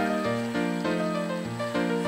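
Background instrumental music: a melody over changing bass notes at a steady beat.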